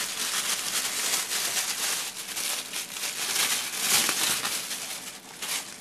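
Clear plastic bag crinkling and rustling in irregular bursts as hands unwrap a coiled microphone cable from it, loudest about four seconds in.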